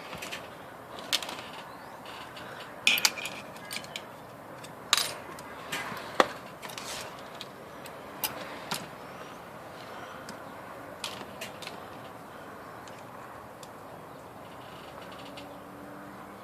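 Irregular sharp clicks and taps of hand tools and small parts against an IBM Selectric typewriter's mechanism while its cycle clutch and shaft end cap are being refitted, about a dozen in all, with the loudest near the middle, over a steady low hiss.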